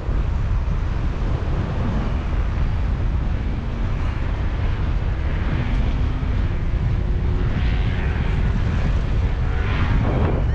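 Strong wind buffeting the microphone in paraglider flight: a steady, loud rumble of rushing air.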